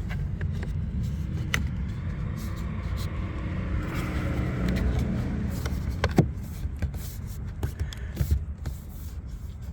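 Plastic clip-on cover being worked onto a car's interior door pull: a few light clicks and one sharp snap about six seconds in as it clips over the old handle, over a steady low rumble.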